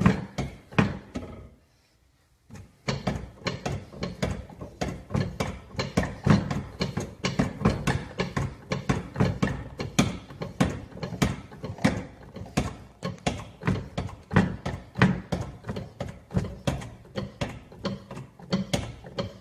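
Shop press being worked as it presses the drive-side cover onto an ebike hub motor: a steady run of sharp mechanical clicks, about three a second. The clicking stops briefly about two seconds in, then goes on.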